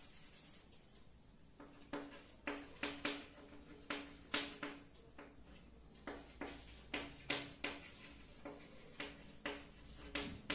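Chalk writing on a blackboard: a quick, irregular run of short tapping, scraping strokes, each with a faint squeaky ring. It begins about a second and a half in, after a soft wipe of a cloth duster across the board.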